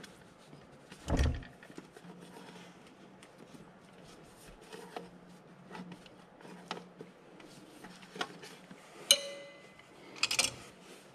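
Metal hand tools handled while loosening an engine's spin-on oil filter. There is a dull knock about a second in, a few light clicks, then a sharp metal clink with a brief ring and a short rattle near the end as the oil filter pliers are picked up.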